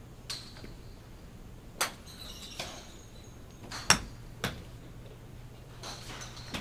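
Golf clubs striking balls on a driving range: a handful of sharp clicks, the loudest about four seconds in.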